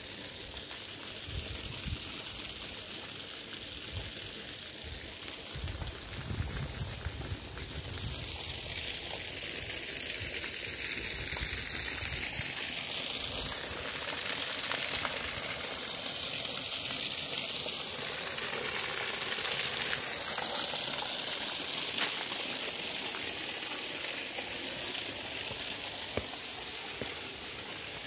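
A low rumble at first, then from about eight seconds in a steady splashing hiss of a thin stream of water pouring down a concrete wall onto rocks.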